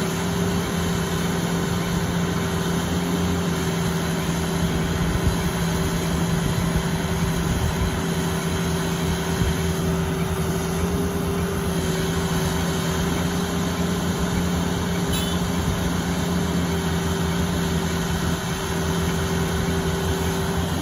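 Engine of a heavy construction machine running steadily at idle, with a constant low hum.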